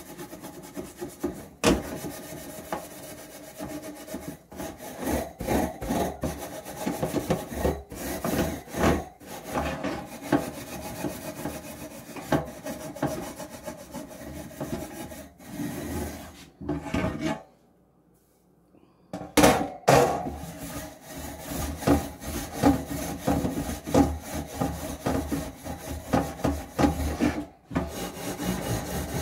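Steel wool scrubbing a metal oven rack in a sink: a dense run of rasping back-and-forth strokes, broken once by a pause of about two seconds just past the middle.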